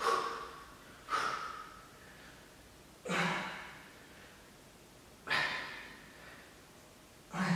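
A man's sharp, forceful breaths out, one with each press-up: five in all, roughly every one to two seconds, each fading quickly.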